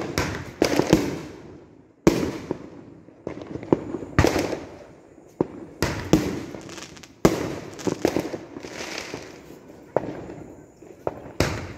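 Fireworks exploding overhead: a dozen or more sharp bangs at irregular intervals, some in quick pairs, each trailing off in a fading echo.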